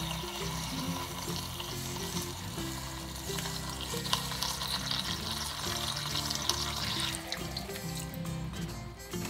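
Pomfret and chilli spice paste sizzling in a wok, with water poured in near the end; background music plays throughout.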